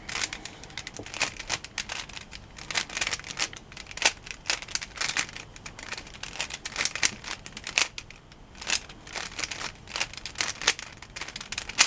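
Plastic Rubik's cube being turned by hand: quick, irregular clicks and clacks of its layers twisting, several a second.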